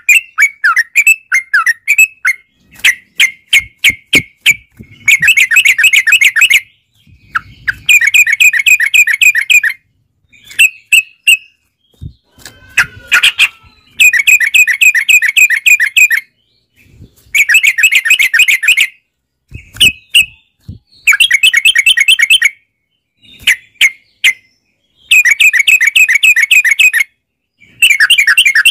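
Yellow-vented bulbul (trucukan) singing: a few quick chirps, then repeated rapid rolling bursts of notes (the 'ropel'), each lasting a second or two with short pauses between. This is lure song meant to set other bulbuls calling.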